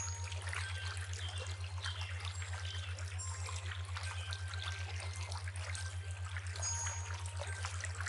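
River water trickling and lapping, a fine, crackly flow sound. Underneath it runs a steady low hum that pulses about six times a second.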